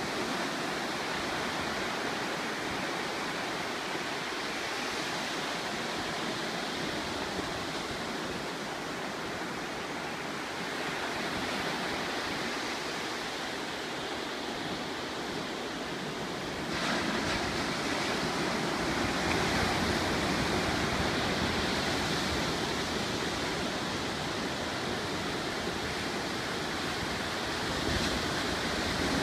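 Ocean surf breaking and washing onto a beach: a steady roar of waves that grows louder, with more low rumble, a little past halfway through.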